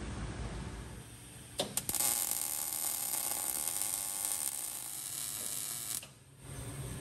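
MIG welder laying a weld bead on a steel bumper joint: a few sharp clicks as the arc strikes, then a steady crackling sizzle for about four seconds that stops abruptly.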